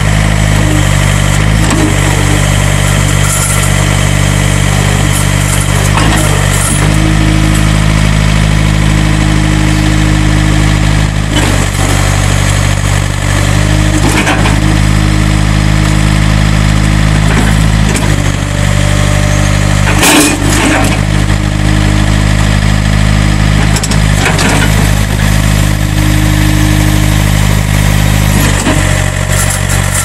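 2005 John Deere 110 tractor loader backhoe's diesel engine running steadily while the front loader is worked up and down. A higher tone comes and goes several times over the engine, and there are a few sharp clunks, the loudest about twenty seconds in.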